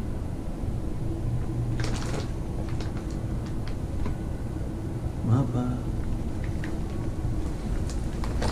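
Low steady rumble of handheld movement, with scattered light clicks and knocks from things shifted among clutter, and a short rising pitched sound a little past halfway.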